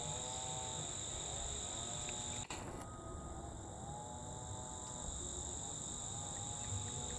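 A steady, high insect chorus buzzing at two pitches. A low call that rises and falls, under a second long, repeats several times. A single sharp click comes about two and a half seconds in, after which part of the high buzz drops out for a couple of seconds.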